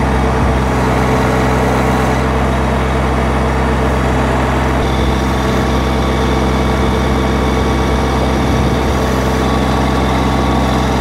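Massey Ferguson compact tractor's engine running steadily at constant speed while it powers the rear backhoe digging into turf and soil.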